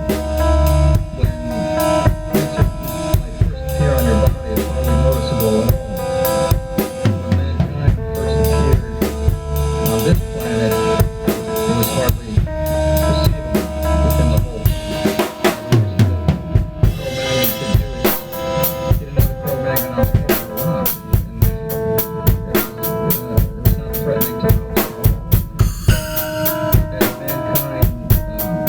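Improvised rock drumming on a full drum kit, with heavy bass drum, snare and cymbals, over held instrument notes. About two-thirds of the way through, the drumming turns into a faster, denser run of even strikes.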